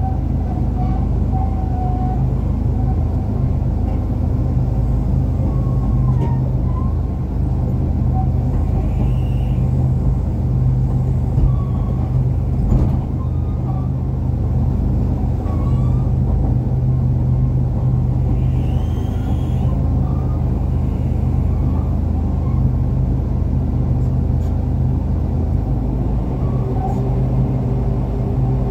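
Truck engine running steadily, a continuous low drone heard from inside a vehicle cab.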